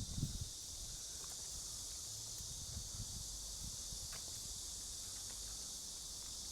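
Steady, high-pitched outdoor insect chorus, with a few low thumps of steps or camera handling at the start.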